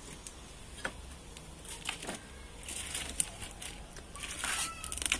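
Firewood sticks shifted into a wood fire under a cooking pot, with scattered crackles and knocks.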